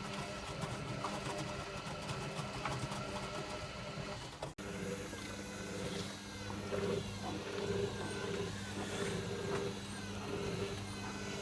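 Servis Sapphire 6055 washing machine running mid-cycle: a steady motor hum with the drum turning. The sound cuts out for an instant a little under halfway through.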